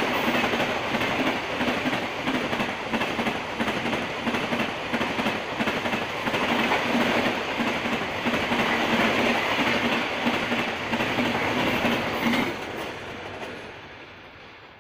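LHB passenger coaches passing close at high speed: a steady rolling roar with a rhythmic clatter of wheels over the rail joints. The sound falls away sharply about two seconds before the end.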